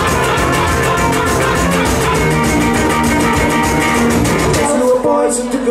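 Live band playing rock music on guitars with a bass and a steady beat. About four and a half seconds in, the low end and the beat drop out, leaving the guitars and higher parts.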